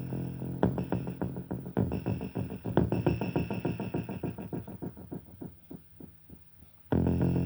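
Electronic synthesizer music with held chords over a drum-machine pulse. It thins out and drops quiet about two-thirds of the way through, then the full sound comes back in suddenly near the end.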